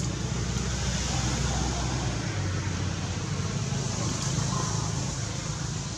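Steady outdoor background noise: a constant low rumble under an even hiss.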